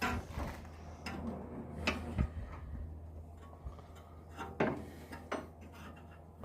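Spanner and metal parts clinking and knocking while brake caliper bolts are worked loose: a handful of separate sharp metallic knocks, over a low steady hum.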